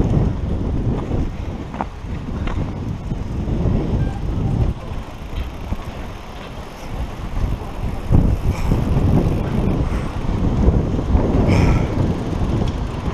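Wind buffeting a helmet-mounted camera's microphone in uneven gusts, over the scuffing footsteps and knocks of riders pushing mountain bikes uphill on a muddy track.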